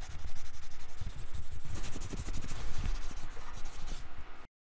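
Pen scratching and rubbing across paper in quick, uneven strokes, cutting off abruptly near the end.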